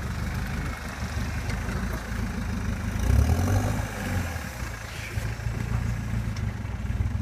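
Nissan Hardbody pickup's engine running at low revs as the truck crawls through a deep sand rut, with a brief burst of throttle about three seconds in.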